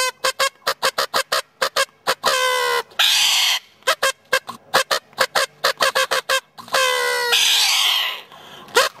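Paper party blower honked in many short, rapid toots and two longer buzzy blasts, each long blast answered by a harsh screech from a corella.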